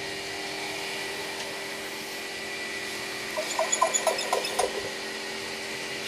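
Hill myna giving a quick run of short, sharp clicking notes lasting about a second, a little past the middle, over a steady machine hum.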